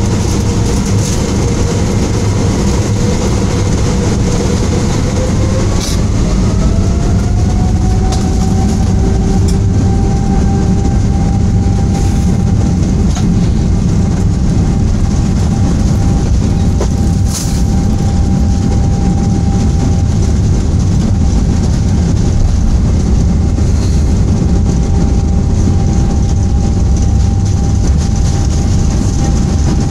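The Boeing 777's twin Rolls-Royce Trent 800 turbofan engines heard from inside the cabin during the takeoff roll. The engines spool up to takeoff thrust with a rising whine about five to eight seconds in, then hold a loud, steady roar and rumble, with a few sharp knocks along the way.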